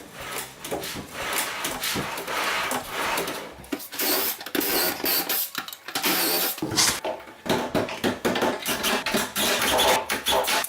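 Power drill running in short, irregular bursts, driving screws into wood blocks to mount a drawer slide.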